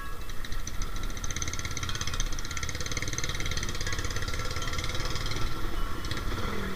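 Motorcycle engine running steadily while the bike is ridden, with a continuous low rumble.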